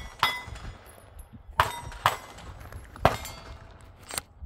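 Glock pistol shots fired in quick pairs, about half a second apart within each pair. Each sharp crack has a short ringing tail.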